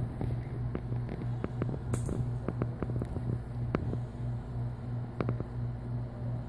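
A steady low hum, like a fan or an appliance running, with scattered light clicks and ticks.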